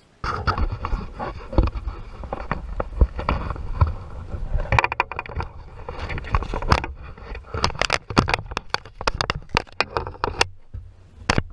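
Irregular knocks, clicks and scrapes of handling in a fishing kayak, over a low rumble. One sharp knock comes near the end.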